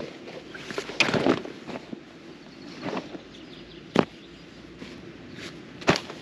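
Camping gear being tossed out of a tent onto grass while packing up: rustling of nylon bags and fabric, with three sharp thumps about a second in, in the middle and near the end as sandals and a dry bag land.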